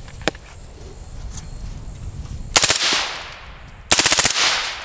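Select-fire 5.56 AR rifle with a Bushmaster Muta direct-thread suppressor firing two short full-auto bursts, a quick one about two and a half seconds in and a longer one of about eight or nine rounds about a second later.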